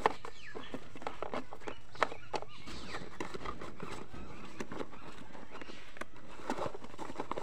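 Cardboard box and packaging being handled and opened by hand, with scattered sharp clicks and rustles of card and plastic; the sharpest clicks come right at the start and about two seconds in.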